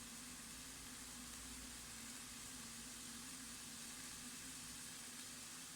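Pot of sauce with chicken meatballs cooking on the stove, giving a faint, steady sizzling hiss.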